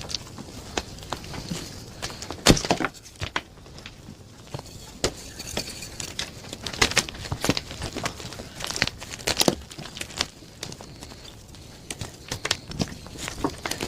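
Blocks of plain gym chalk being crushed and crumbled, a run of irregular crisp crunches and crackles over a soft powdery rustle. The sharpest crunch comes about two and a half seconds in.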